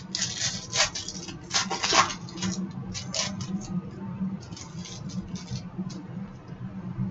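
Hockey trading cards and their packaging being handled: irregular rustling and sliding scrapes, busiest in the first two seconds and loudest about two seconds in, then lighter and sparser.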